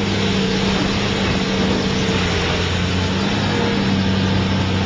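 Caterpillar demolition excavator's diesel engine running steadily, a constant low hum with an even rushing noise over it.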